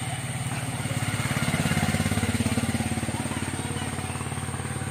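A motor vehicle's engine running with a fast, even pulse. It grows louder to a peak about two seconds in, then fades as it passes by.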